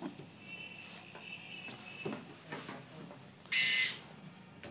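A small electric motor whirs briefly for about half a second, three and a half seconds in. Before it there is a faint high hum and a few light clicks.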